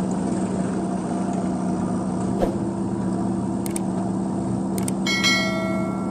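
Diesel engines of a JCB backhoe loader and a Mahindra tractor running steadily, with a dull thump a little over two seconds in. Near the end, two sharp clicks and then a bright bell chime, the sound effect of a subscribe-button animation.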